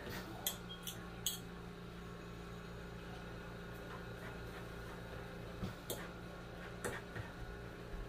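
Two forks shredding boiled chicken on a cutting board, giving a few short sharp clicks of metal, three close together at the start and a few more later, over a steady low hum.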